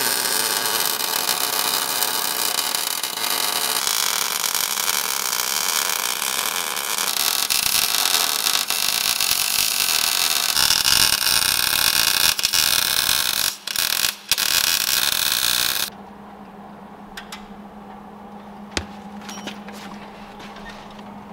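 Electric arc welding on a steel truck frame, joining the cut frame back together: a continuous crackling sizzle with two short breaks near fourteen seconds, stopping about sixteen seconds in. A low steady hum is left after the welding stops.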